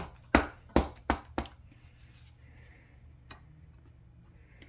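A plastic engine-oil bottle being opened by hand: a quick run of sharp clicks and snaps in the first second and a half, then a single fainter click a little over three seconds in.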